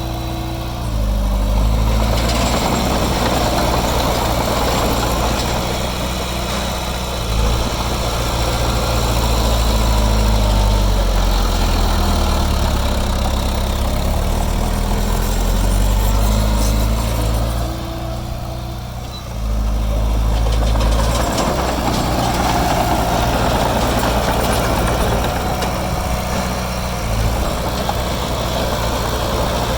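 Diesel engine of heavy earthmoving equipment running steadily, its pitch rising and falling as it works. It dips briefly about two-thirds of the way through, then comes back up.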